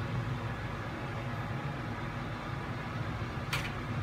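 Steady low machine hum, with one short sharp click about three and a half seconds in.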